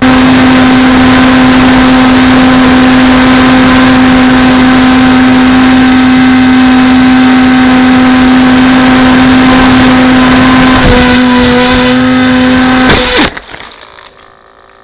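Electric motor and propeller of a small radio-controlled FPV plane, heard from its onboard camera: a loud steady whine over a wind rush. About 11 s in the note shifts; about 13 s in there is a sharp crack as the plane crashes into a bush, and the motor winds down and stops.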